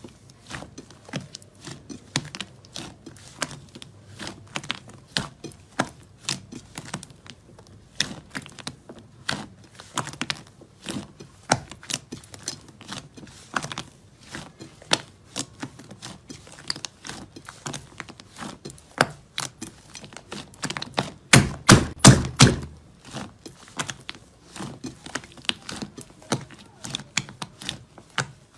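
Slime being squeezed and poked by hand, giving a stream of irregular crackling clicks and pops, with a louder run of quick pops a little after two thirds of the way through.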